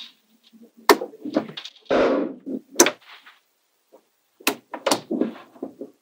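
Small magnetic balls clicking and clattering as magnet-ball sections are snapped onto a magnetic-ball model: several sharp clicks, with short rattling clatters of the balls in between.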